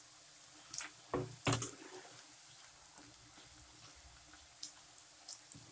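Batter-coated raw plantain finger strips deep-frying in hot oil: a faint steady sizzle with scattered pops. A slotted spoon is worked through the pieces, with a few knocks and clicks, the loudest about a second and a half in.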